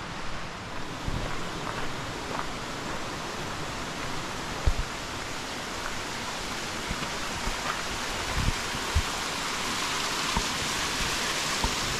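Steady outdoor rushing noise, getting slightly louder near the end, with a few soft low thumps scattered through it.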